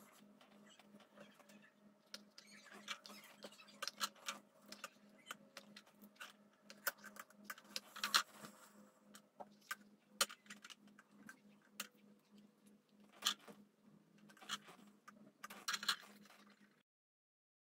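Plastic spring clamps being handled and clipped onto the edge of a leather knife sheath on a wooden table: scattered irregular clicks and taps over a steady low hum. The sound cuts off near the end.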